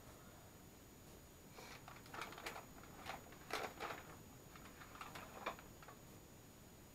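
Sheets of paper being handled and shifted on a table: a string of short, irregular rustles and crinkles, starting about a second and a half in and stopping after about four seconds.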